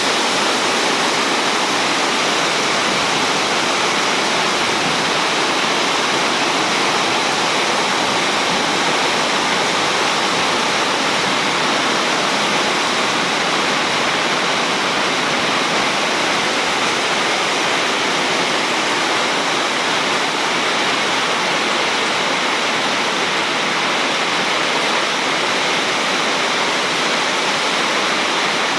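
Heavy rain pouring down in a loud, steady, unbroken hiss.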